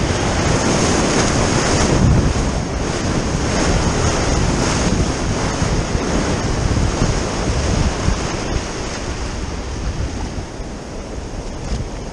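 Breaking whitewater rushing and hissing around a sea kayak's bow as it surfs a wave, with wind buffeting the microphone. It is loudest about two seconds in and eases off toward the end.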